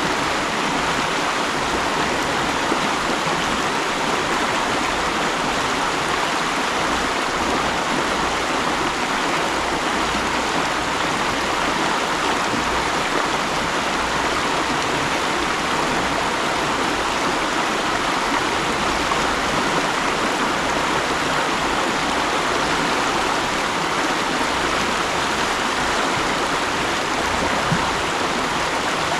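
Mountain stream running over rocks: a steady rush and babble of flowing water.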